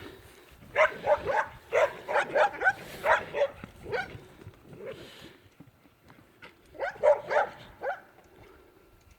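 Young cattle dog barking in quick runs of short barks, with a pause of a few seconds between the runs.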